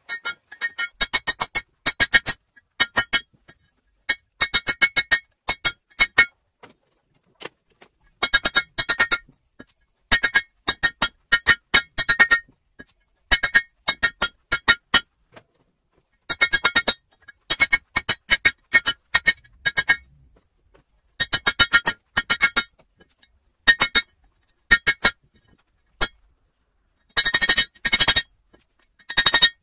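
Hammer blows on hot leaf-spring steel on a steel anvil, each strike ringing with a bright metallic tone. The blows come in quick bursts of several strikes, with short pauses between bursts.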